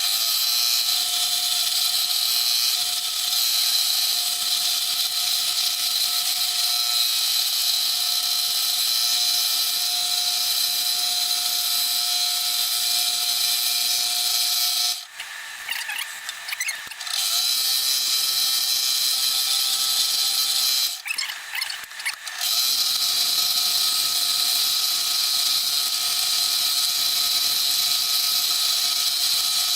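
Electric scroll saw running with a steady high whine. It stops twice briefly and starts up again.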